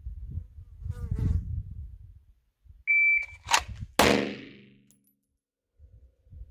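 Shot timer giving a single short high start beep, then just over a second later the handgun is drawn and fired, sharp gunshot reports with a ringing decay.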